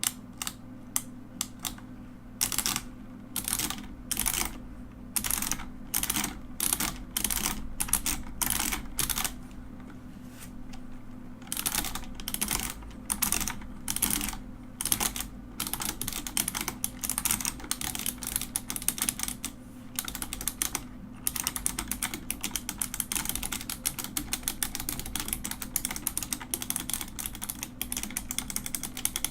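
Mechanical keyboard being typed on: separate clacking keystrokes with short pauses, then after a brief stop near the end a fast, dense run of typing.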